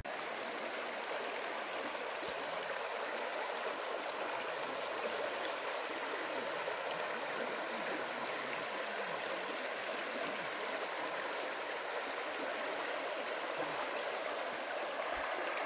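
Shallow river running fast over gravel and cobble stones: a steady rush of flowing water.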